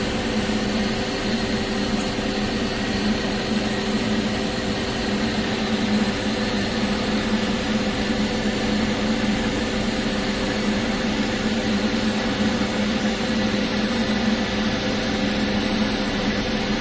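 Steady drone of welding-shop machinery, a constant hum with a low tone over a noise haze, while TIG welding of carbon-steel pipe goes on.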